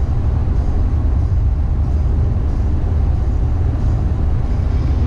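A car driving along, heard from inside the cabin: a steady low rumble of engine and road noise.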